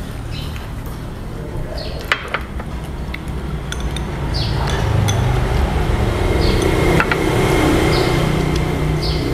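Chopsticks and spoons clinking against ceramic bowls and plates during a meal: a few sharp clinks over a steady low background rumble.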